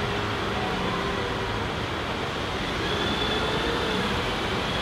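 Steady noise of a busy city street: road traffic on a wet road mixed with rail noise from the railway line, with a faint high squeal coming in about three seconds in.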